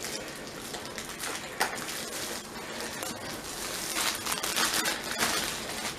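Packaging being handled: irregular rustling and crinkling with small clicks, a little louder about two-thirds of the way in.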